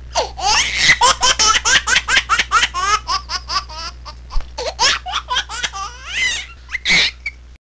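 A person laughing hard and high-pitched, a quick unbroken run of laughs that cuts off suddenly near the end.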